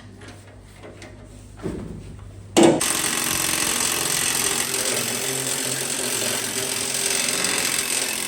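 A knock, then a power tool starting about two and a half seconds in and running steadily for about six seconds with a hissing, whirring noise.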